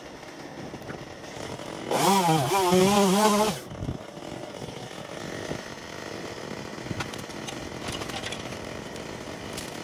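Chainsaw revved hard for about a second and a half, its pitch wavering as it bites, about two seconds in, while cutting dead branches from a storm-felled tree; before and after, it runs at a much lower level.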